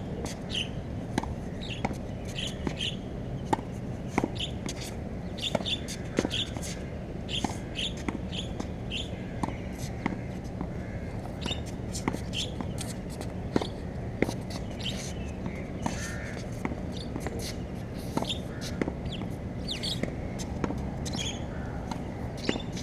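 A tennis ball being hit with a racket against a practice hitting wall: irregular sharp thwacks of strings and wall, several a few seconds apart. Short high squeaks come between the hits.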